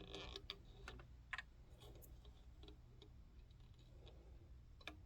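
Near silence with a few faint, scattered clicks and ticks from hand-threading a serger, thread and fingers working the thread guides.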